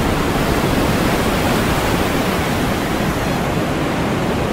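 Storm sound effect: a steady rush of wind and surf.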